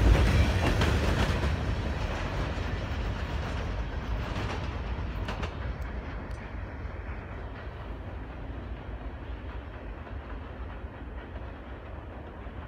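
Freight train cars rolling past on the rails, a steady rumble with a few sharp wheel clicks partway through, fading steadily as the end of the train draws away.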